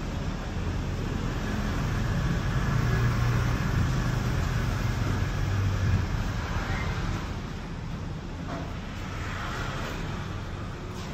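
City traffic rumble with a motor vehicle's engine that grows louder, then fades away about halfway through.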